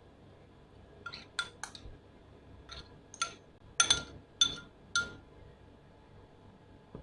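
Metal spoon clinking against a ceramic bowl about nine times, the clinks ringing briefly at the same pitch, loudest around the middle, as chili sauce is scraped out.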